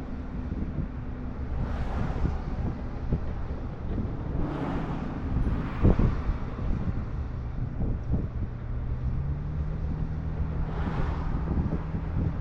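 Boat engine running steadily at the stern, its pitch rising a step about nine seconds in, with wind buffeting the microphone and swells of rushing water. A few sharp knocks, the loudest about six seconds in.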